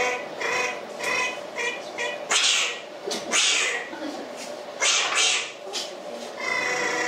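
Puppeteer's squeaky, buzzing, animal-like character voice for the puppets: a run of short calls about two a second, then several breathy hissing bursts, and one longer call near the end.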